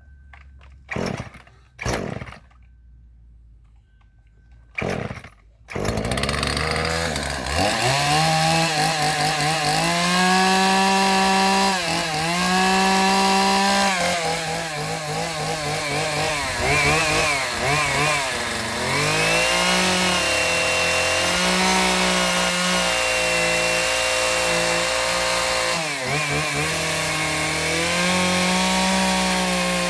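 A chainsaw is pull-started, catching on the third pull about six seconds in, then runs at high revs with its pitch dipping and recovering several times, as it does when bogging into wood.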